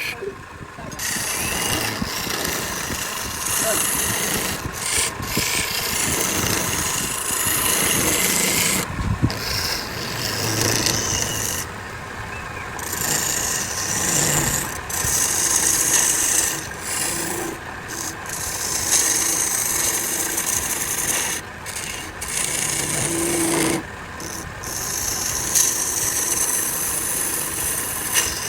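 Wood turning on a lathe with a tool or abrasive held against the spinning piece: a steady rasping rub that lifts off briefly several times and resumes.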